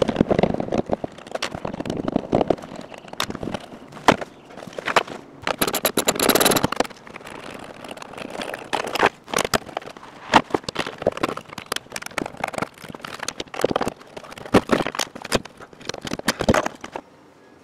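Rear parcel-shelf trim and carpet of a Lexus SC400 being pulled out by hand: a run of sharp clicks and crackles from plastic clips and stiff trim, with a longer tearing rustle about six seconds in.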